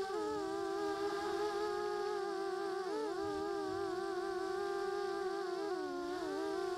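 Brushless motors and propellers of a HobbyKing Hello Color FPV quadcopter in flight, a steady whine. Its pitch dips and bends briefly about three seconds in and again near the end as the throttle changes.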